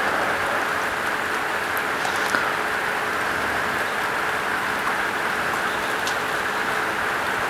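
Steady rain falling, with a few single drops ticking sharply now and then.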